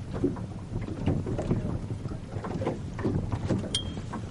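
Water lapping and splashing irregularly against a boat's hull, over a low wind rumble on the microphone. A single sharp click with a brief high ping comes near the end.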